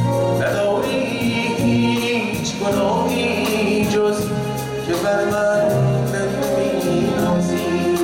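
A male singer sings a Persian pop song live through a handheld microphone, over band accompaniment with a steady beat.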